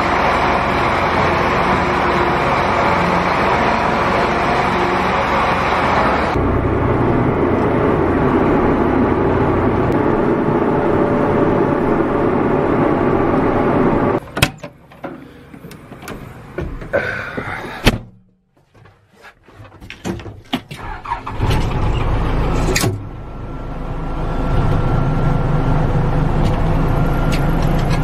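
A large John Deere tractor's diesel engine running steadily as it drives out. About halfway through the engine sound cuts away, leaving a few clicks and knocks. Then a second diesel machine, an orange loader backhoe, starts and runs steadily to the end.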